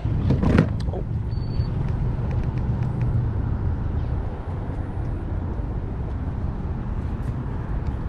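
Wind buffeting the microphone: a steady, uneven low rumble. A knock comes about half a second in, and a brief high beep about a second and a half in.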